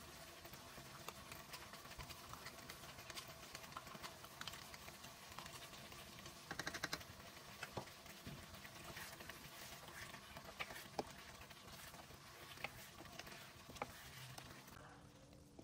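Mutton curry sizzling and bubbling in a wok: a faint steady hiss dotted with small pops and crackles, and a quick run of clicks about seven seconds in. A wooden spatula stirs the curry now and then.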